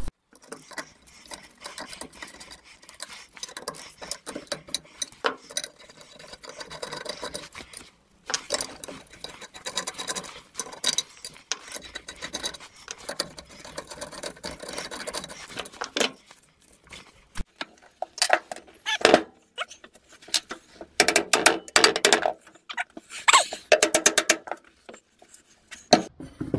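Metal-on-metal clicks, scrapes and rattles as a T-handle hex key works the bolts inside a cast-iron lathe headstock and the headstock is worked loose from the bed, with a cluster of sharper metallic clanks in the last few seconds.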